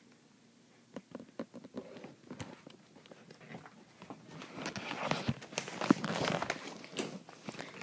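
Footsteps and handling rustle from someone walking while holding the recording phone, a scatter of soft steps that grows busier and louder partway through.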